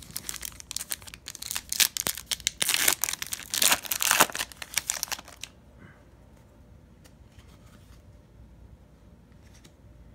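Foil wrapper of a Panini Prizm football card pack being torn open and crinkled: a dense run of crackling tears for about five and a half seconds, then only a few faint ticks.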